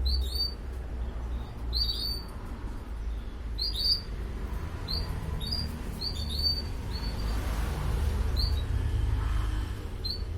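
Caged canaries giving short, high chirps, about a dozen at irregular intervals, over a steady low rumble.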